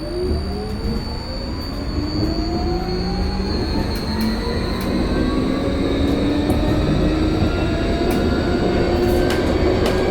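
Vossloh-Kiepe Tramlink light-rail tram pulling away and accelerating: its electric traction drive whines in several tones that climb steadily in pitch, over rolling noise that grows slowly louder, with a few sharp clicks.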